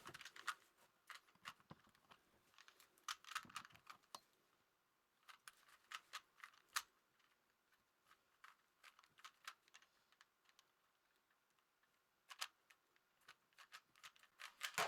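A plastic 3x3 Rubik's cube being turned quickly by hand, its layers clicking and clacking in rapid irregular bursts with short pauses between.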